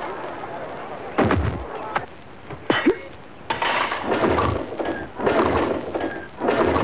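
Cartoon soundtrack sound effects: a dull thud about a second in and a sharp whack near three seconds, then a run of rough, noisy bursts about once a second.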